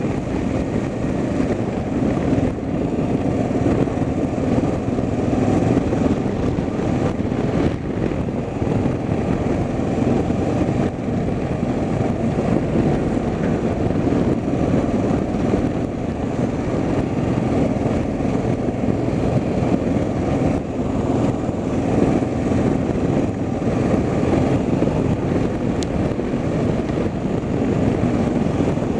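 Steady road and engine noise of a car being driven, an even rumble with no distinct events.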